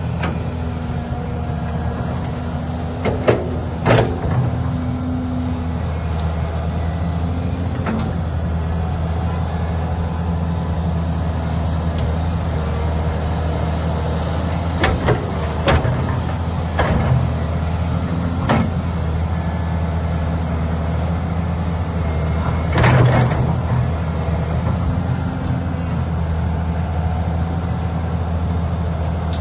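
Diesel engine of a heavy construction machine running steadily, with a scattering of sharp metallic clanks and knocks and a longer clatter about three-quarters of the way through.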